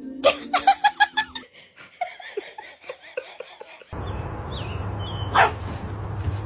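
A person laughing in a rapid run of short bursts that fade away, followed about four seconds in by an abrupt switch to a steady hiss with a thin high tone.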